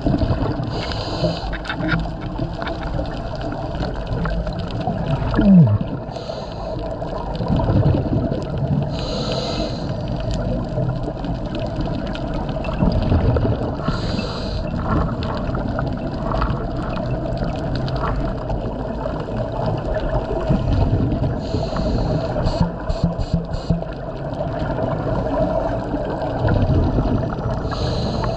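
Underwater sound of a scuba diver breathing through a regulator: a short hiss of inhaling every few seconds, alternating with low rumbling bubbles of exhaling, over a steady low hum.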